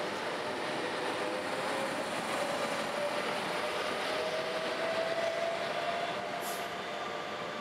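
Gothenburg trams running on the rails, an M31 tram approaching with a second tram moving alongside: a steady rumble of wheels on track with a motor whine that rises slowly in pitch. A short high hiss comes near the end.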